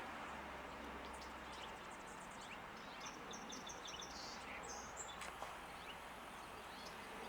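Faint bird chirping over a steady outdoor hiss, with a quick run of short high notes about three seconds in and a few more shortly after.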